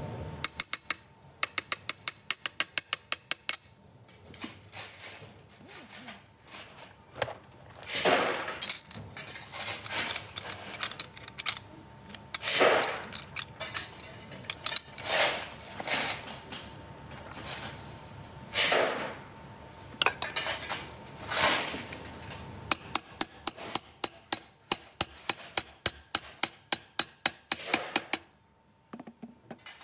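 Metal parts of a cycloidal pinwheel reducer being hammered and fitted together. A quick run of ringing metal taps comes near the start, then scattered louder clunks and scrapes as parts are set in place. Near the end a steady run of about four hammer taps a second drives a bearing onto the eccentric shaft through a tubular drift.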